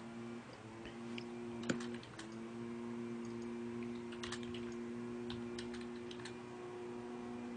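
Computer keyboard being typed on: a dozen or so light, irregular keystroke clicks, some in quick pairs, over a faint steady hum.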